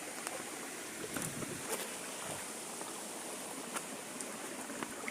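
Steady rushing outdoor background noise with a few faint clicks and taps.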